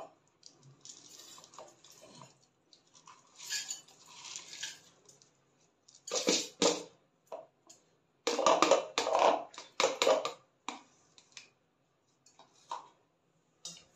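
Wet rice and dal grains poured from a plastic bowl into a steel mixer-grinder jar, sliding and scattering against the steel, with hands scraping the last grains in. Soft rustling at first, then louder bursts about six seconds in and again between eight and ten seconds, followed by a few small clicks.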